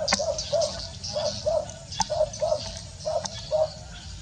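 A dog barking in a quick, even run of short barks, about three a second, with birds and insects chirping behind.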